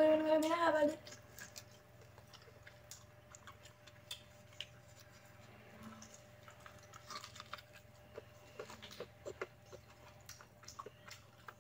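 Boiled corn on the cob being bitten and chewed: faint, scattered small clicks as the kernels are eaten off the cob. A brief hummed voice sound comes at the very start.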